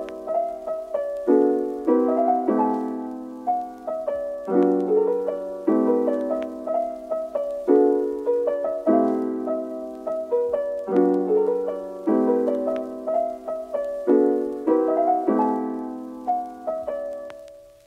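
Background piano music: a gentle melody of struck notes and chords, each ringing and dying away, fading out near the end.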